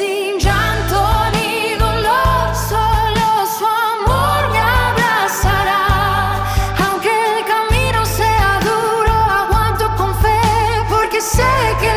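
Christian worship pop song: a sung melody with vibrato over a steady bass line and full band backing.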